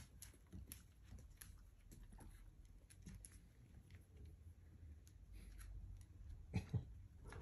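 Faint, scattered clicks of claws on a hardwood floor as a dachshund puppy and a cat move about, with two louder thumps close together near the end.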